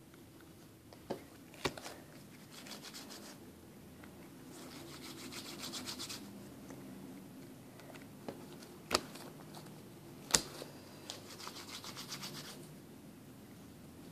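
Hands pressing and rubbing slime against a tabletop: soft rubbing and scraping that comes and goes in stretches. A few short, sharp taps stand out, twice in the first two seconds and twice more about nine and ten seconds in.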